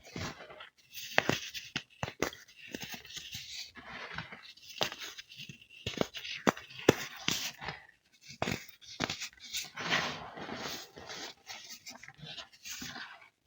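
Crisp baked baking soda crunching and crumbling as it is crushed: irregular sharp cracks mixed with gritty, crackling rustle, with short pauses between squeezes.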